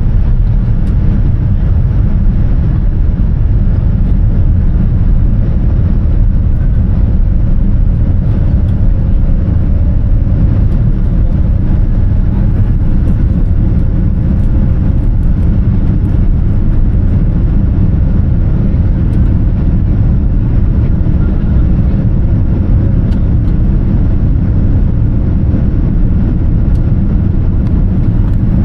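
Cabin noise inside a Boeing 787-10 Dreamliner in flight: a loud, steady, deep rumble of airflow and engines with a faint steady hum.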